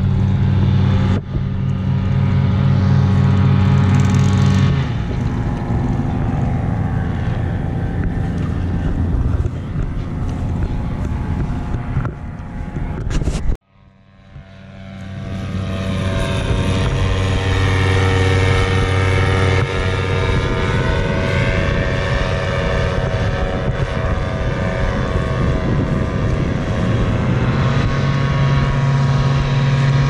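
Paramotor engine running with its propeller, its pitch shifting as the throttle changes. About halfway through the sound cuts out abruptly, then swells back up over a couple of seconds.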